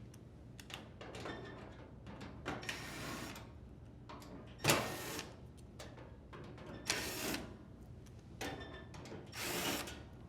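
Drill driver with a Phillips bit backing out screws in several short runs, each lasting about half a second to a second, with pauses between them.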